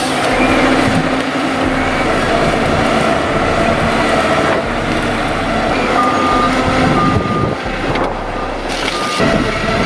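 Heavy machine's diesel engine running steadily, with a reversing alarm beeping several short times in the second half.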